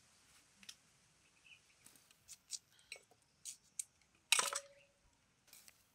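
Knife working a peeled cassava root over a metal pot: a run of short crisp scrapes and clicks, the loudest a longer scrape about four and a half seconds in.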